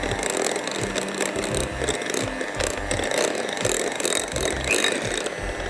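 Electric hand mixer running, its beaters whipping a thick chocolate frosting in a glass bowl, with background music underneath. The mixer stops near the end.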